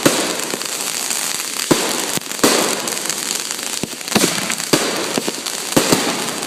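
Consumer fireworks going off: a continuous crackling hiss, broken by sharp bangs at irregular intervals, about one a second.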